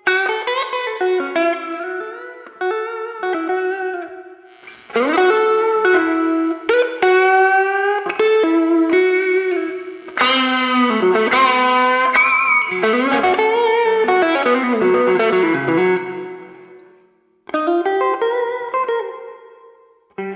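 PRS Silver Sky SE electric guitar with single-coil pickups, played through an amp in bluesy single-note licks with string bends, the phrases broken by short gaps and a brief pause about 17 seconds in.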